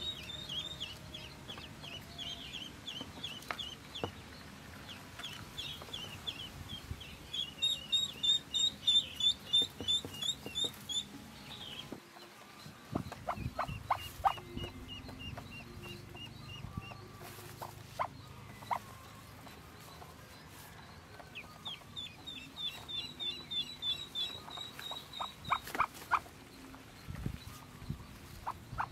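Newborn Pekin ducklings peeping: rapid runs of short, high-pitched falling notes, several a second, in bouts with pauses between. A few sharp knocks and rustles from hands handling the basket nest come in the second half.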